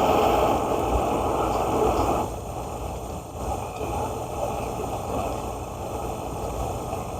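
Pressurized white-gas stove burner (Optimus 8R) running with a steady rushing hiss that drops to a quieter, lower level about two seconds in as the flame is turned down to a simmer.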